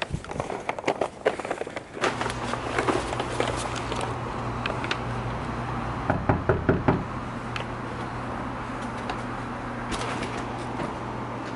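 Knuckles knocking on a painted front door, a quick series of about six raps about six seconds in, over a steady low hum. Footsteps on pavement come before it.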